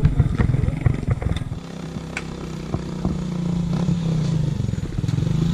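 Motorcycle engine running, with rattling clatter; it eases off about a second and a half in and builds up again over the next few seconds.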